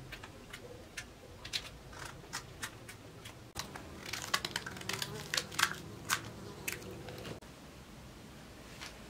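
Fresh wild mushrooms being cut with small knives and snapped apart by hand: irregular crisp snaps and crunches, thickest and loudest in the middle few seconds.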